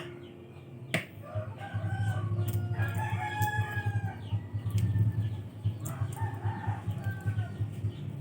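Rooster crowing with other chicken calls, over a steady low rumble; a sharp click about a second in.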